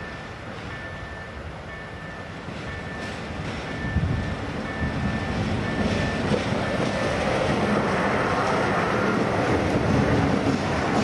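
Eesti Raudtee diesel locomotive approaching and passing close, its engine rumble and wheels on the rails growing louder from about four seconds in and loudest near the end. A short high ping repeats about twice a second through the first half, from the level-crossing warning signal.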